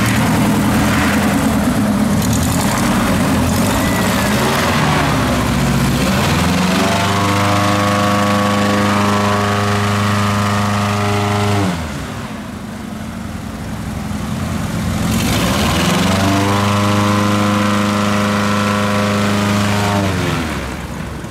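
Airboat engine and propeller running loud, revving up twice to a steady high-pitched drone held for about five seconds each time, then dropping back.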